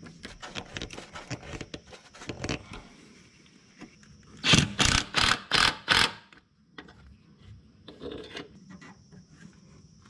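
Screwdriver tightening a worm-drive hose clamp on a fuel filter hose: a quick run of small clicks and scrapes. About four and a half seconds in come five loud short noises, about three a second, then only scattered faint clicks of hand tools.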